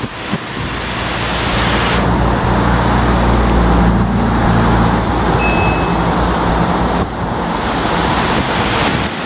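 Floodwater rushing down a concrete river channel, mixed with road traffic noise; a vehicle engine hums low through the middle few seconds.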